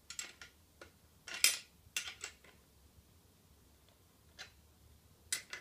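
Chrome bongo tuning wrench clinking against the drum's lug nuts and tension hooks as the lugs are tightened to tension a newly mounted bongo head: a series of sharp metal clinks, the loudest about a second and a half in.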